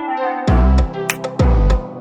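Background music with a drum beat: heavy kick-drum hits and sharp high ticks under a pitched melody.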